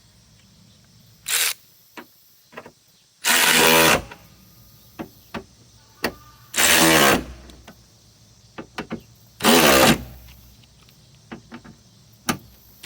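RIDGID R866011 cordless 3/8-inch ratchet running in short bursts as it tightens fender fasteners. It gives a brief blip about a second in, then three loud motor whines about three seconds apart, with faint clicks of handling between them.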